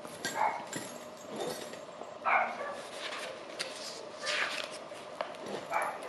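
A dog barking a few times, short barks spaced about two seconds apart.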